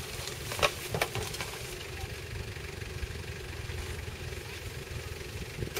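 Off-road 4x4's engine running slowly at low revs, a steady low rumble, with a few sharp cracks in the first second and a half as the body scrapes through hedge branches.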